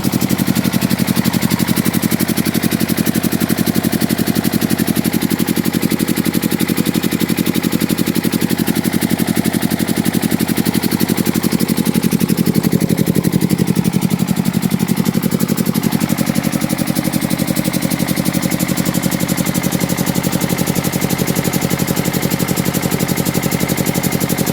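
Two-cylinder water-cooled diesel engine of a 20 kVA generator set running steadily at constant speed, with a rapid even throb.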